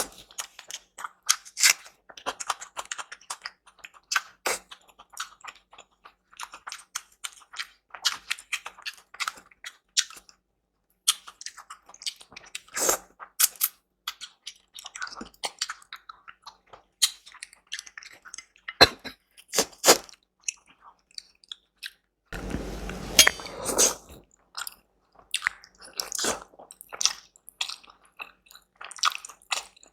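Close-miked chewing and biting of food: a steady run of wet mouth clicks and crunchy bites, with a brief pause about a third of the way in. About three-quarters through there is a short stretch of steady noise under the chewing.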